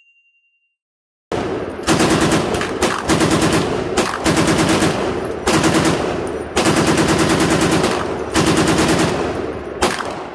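M60 general-purpose machine gun firing 7.62×51 mm NATO rounds from a belt. It fires several bursts of automatic fire, about nine shots a second, with brief pauses between the bursts, starting about a second in.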